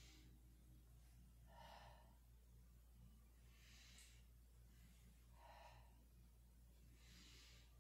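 Faint breathing of a woman: four slow breaths about every two seconds, over a low steady hum.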